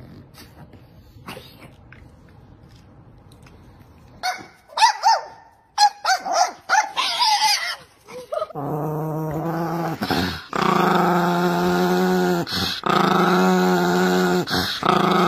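A small Chihuahua-type dog growling in long, steady, drawn-out bouts, broken by brief pauses for breath. This is the loudest sound and starts a little over halfway through. Before it come a few short, high-pitched cries.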